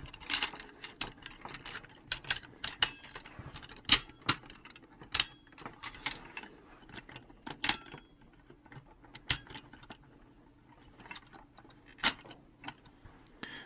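Hard plastic parts of a G1 Ultra Magnus toy clicking and clacking as a fist is pressed into its arm and the pieces are handled. The clicks come irregularly, thick at first, thinning out after the middle, with a few more near the end.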